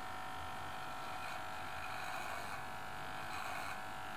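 Corded electric hair clipper running steadily.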